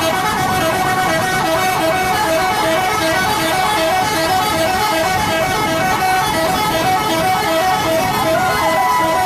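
Bus 'telolet' horn, a multi-tone musical air horn, playing a quick repeating melody of short notes without a break.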